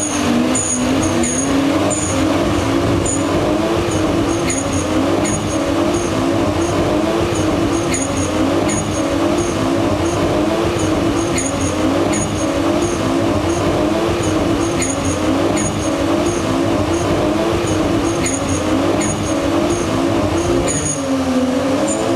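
A car doing a burnout: the engine is held at high revs that waver up and down about once a second while the tyres spin against the pavement.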